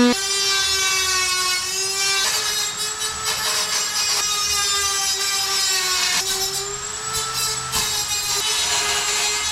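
A Dremel-type high-speed rotary tool sanding the cut edge of an aluminium bracket: a steady high whine whose pitch wavers and dips slightly as the tool is pressed against the metal, with brief changes about 2, 4 and 6 seconds in.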